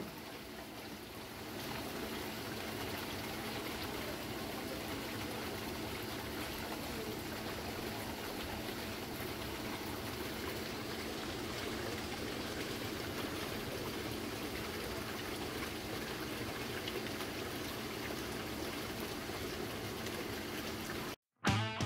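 Hydromassage jets of a hot tub made from a 1,000-litre plastic water tank, driven by a 1/2 hp electric jet pump, churning and bubbling the water steadily, with a faint steady hum underneath. The sound cuts off suddenly near the end, and music starts.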